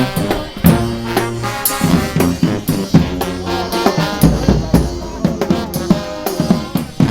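Brass street band playing live: horns carrying a melody over a drum beat with frequent snare and bass drum hits.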